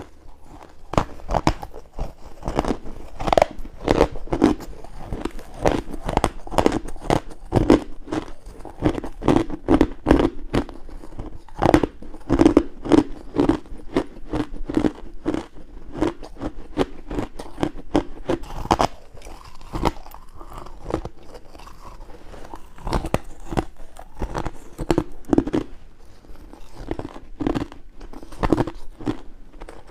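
A person biting and chewing crunchy ice cubes close to the microphone: dense, irregular cracks and crunches, several a second, without pause.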